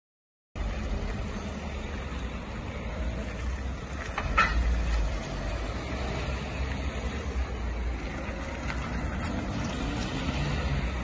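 Patrol cars driving out through a gateway: steady engine and tyre noise with a low rumble, and one short sharp click about four seconds in.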